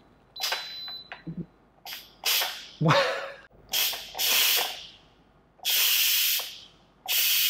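An Instant Pot Duo Plus pressure cooker venting steam through its quick-release valve in short hissing bursts as its release button is pressed and let go, then a steady hiss near the end as the button is held down: a quick pressure release after the water test. A high beep sounds near the start.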